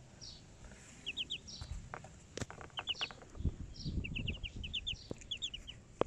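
Ducklings peeping: short high peeps in quick runs of two or three, scattered throughout, with a few low knocks and bumps among them.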